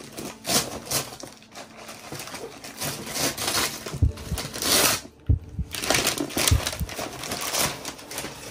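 Wrapping paper being torn and crumpled off a large gift box in irregular rustling, crackling rips, with a few dull thumps in the middle.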